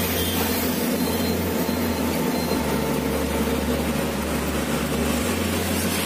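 Steady engine and road noise of a moving vehicle, heard from inside it, with a continuous low drone underneath.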